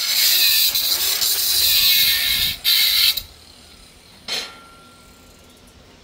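Angle grinder grinding the edge of a steel plate: a loud, harsh hiss that breaks off briefly and then stops about three seconds in. A single sharp metallic knock follows about a second later, with a short faint ring.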